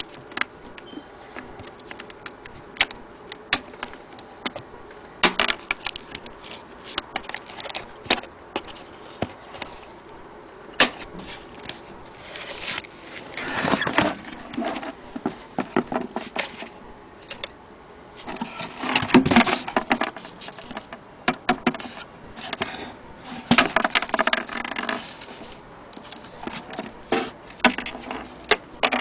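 Vintage Olympia manual typewriter being handled: irregular sharp mechanical clicks, with several louder bursts of metallic clattering and rattling.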